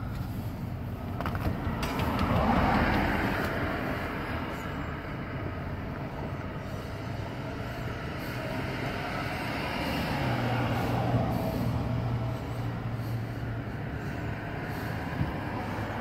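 Road traffic passing: a vehicle swells and fades about two to four seconds in, and a heavier one with a steady low engine drone goes by about ten seconds in, over a constant background hum. A short knock sounds near the end.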